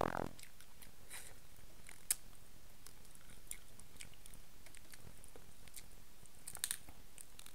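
A person chewing king crab meat, heard as faint wet mouth clicks and smacks, with a sharper click about two seconds in and a short cluster of clicks near the end.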